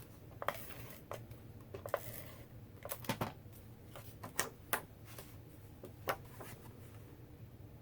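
Scattered light taps and clicks of paper and cardstock being handled and set down on a craft desk, over a low steady hum.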